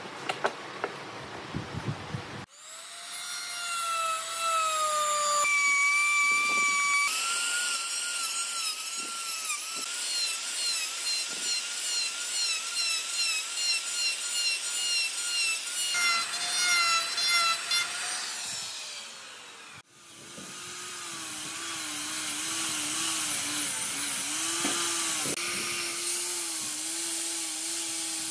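A few knocks, then an electric router starts with a high whine and cuts along the edge of a wood slab, its sound rising and falling in quick pulses as it is fed through the wood. About twenty seconds in it stops suddenly, and an angle grinder with a sanding disc takes over at a lower, steadier pitch, sanding the wood.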